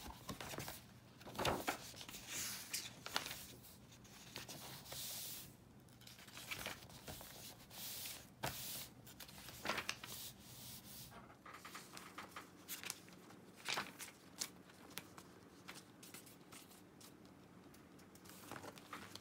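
Thin pages of a Hobonichi Day-Free A5 planner being handled and turned by hand: faint, irregular paper rustles and soft taps.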